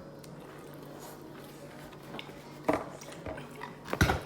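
King crab legs being pulled apart and eaten: a few short wet squishes and clicks in the second half, the loudest near the end, over a faint steady hum.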